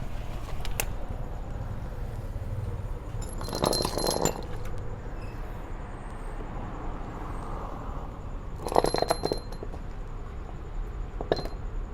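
Metal clinking and rattling in short bursts, with several quick clicks each time. These are hand tools and loose metal parts being handled during work on a car's air-conditioning compressor.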